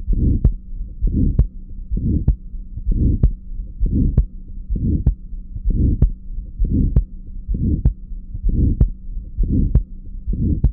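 Recorded heart sounds through a stethoscope: a regular heartbeat, about one beat every 0.9 s, with a harsh systolic ejection murmur of grade 3/6 rushing between the heart sounds. It is heard at the upper right sternal border and is suggestive of aortic valve stenosis.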